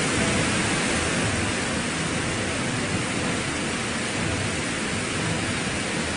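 Floodwater rushing over a low concrete weir: a steady, unbroken rush of white water from a tank overflowing in heavy rains.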